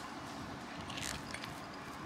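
Ground dried shrimp sliding out of a tipped glass bowl into a stainless steel bowl: a soft, dry rustle that swells about a second in, with a few light ticks.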